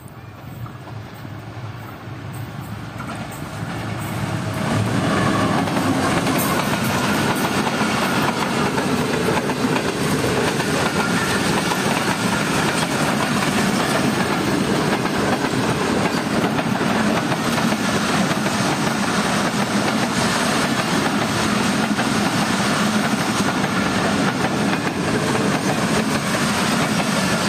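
Passenger express train approaching and passing at speed close by. The noise builds over the first five seconds as the locomotive arrives, then holds as a steady loud rush of coaches, with the wheels clattering on the rails.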